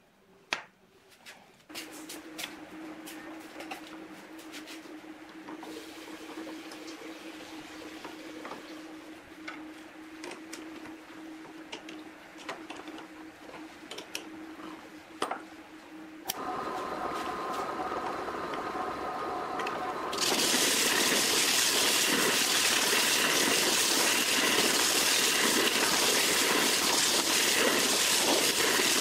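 Metal clicks of a wrench and a drill chuck key. A drill press motor starts about halfway through, and from about two-thirds in, sandpaper held against the spinning wooden sanding drum makes a loud steady hiss over the motor.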